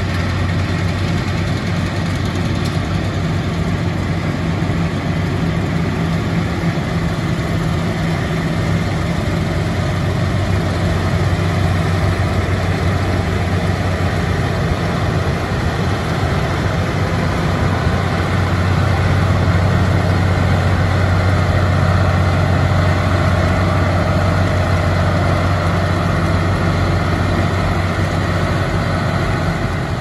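Claas Lexion 8900 combine harvester running under load while cutting barley: a steady low diesel drone mixed with the whirring of its header and threshing machinery. It grows a little louder past halfway as the combine passes close.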